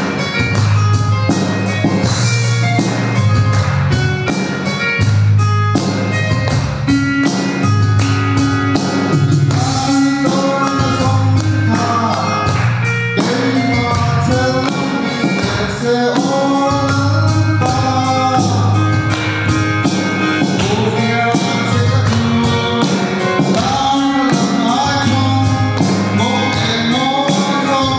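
A man singing a song into a microphone over instrumental music with a steady beat. The first several seconds are instrumental, and his voice comes in about ten seconds in.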